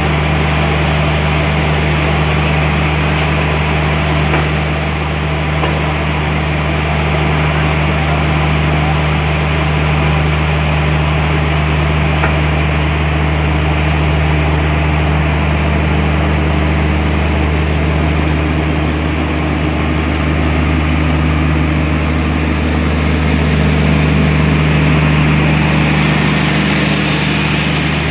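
WAP-4 electric locomotive's cooling blowers and transformer running, a loud steady hum over a broad whirring noise as the train stands and starts to move off. Over the last few seconds the higher whirring grows as the LHB generator car draws level.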